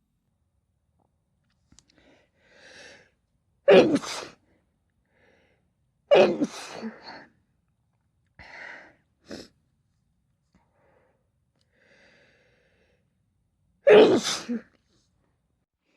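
Three loud sneezes spread across the stretch, with fainter, shorter sounds between them.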